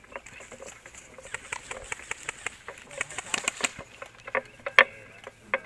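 Airsoft gun firing in irregular shots, with a quick run of shots about three seconds in and a few louder single cracks near the end.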